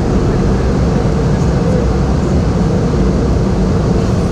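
Steady drone of a Boeing 717 in flight, heard inside the aircraft: its two rear-mounted Rolls-Royce BR715 turbofans and rushing air make an unbroken low rumble with a steady hum.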